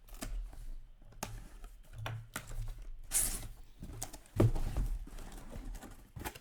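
Hands opening a box of hockey trading cards: a string of small clicks, knocks and rustles, a short tearing rustle about three seconds in, and a louder knock a little after four seconds.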